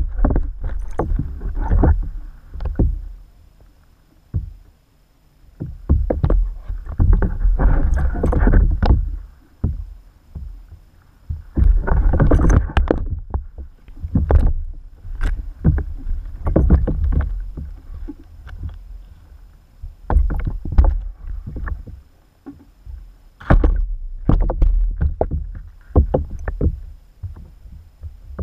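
Water sloshing in a bait bucket of live shiners, heard from under the water inside the bucket. It comes in irregular surges every few seconds, with short knocks and thuds against the bucket.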